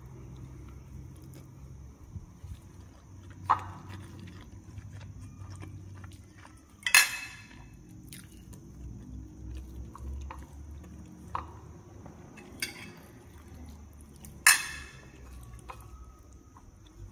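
Someone eating with their hand from glass dishes: soft chewing and mouth sounds, with about five sharp clinks on the glass, two of them loud, about seven seconds in and near the end.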